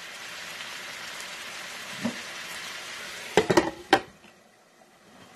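Shrimp sizzling in butter in an electric skillet, a steady frying hiss. About three and a half seconds in, a few sharp clanks as the glass lid is set on the pan, after which the sizzle goes much quieter and muffled under the lid.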